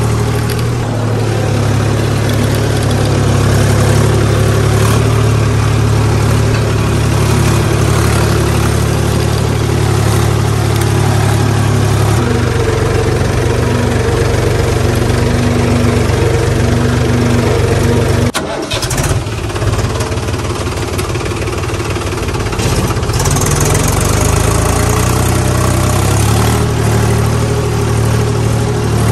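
Tractor engine sound effect running steadily. Its pitch shifts about twelve seconds in, and it breaks off briefly about eighteen seconds in before picking up again.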